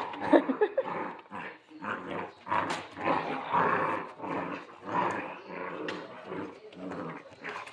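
Central Asian Shepherd (Alabai) puppies growling in play while tugging at a rope toy, a string of short, rough growls.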